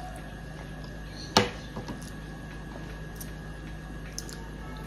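A tall drinking glass set down on the tabletop with one sharp knock about a second and a half in, then a few faint clicks and soft squishes of eating by hand from steel plates, over a low steady hum.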